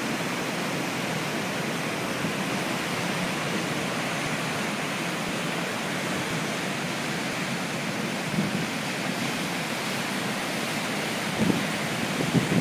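Steady rush of breaking surf and foaming wash on a beach, with a few short low thumps near the end.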